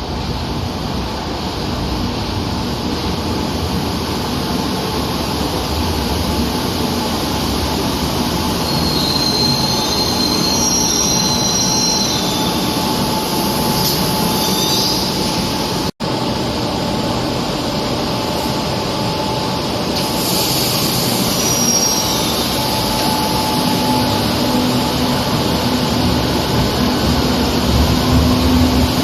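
Madrid Metro train running on the rails, a steady heavy rumble with high-pitched wheel squeal in short stretches. The sound drops out for an instant about halfway, where the recording is cut.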